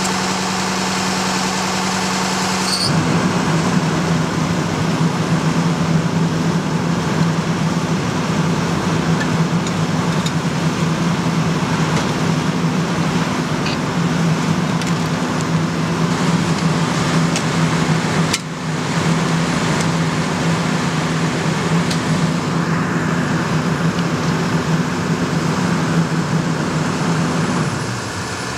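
Fire engine's diesel engine running steadily at the scene, a continuous low drone. Its pitch drops slightly and the drone grows louder about three seconds in.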